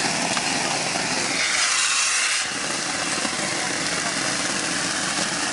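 Shotcrete being sprayed from a hose nozzle: a steady, loud rush of compressed air carrying wet concrete. The hiss turns sharper and thinner for about a second, around two seconds in.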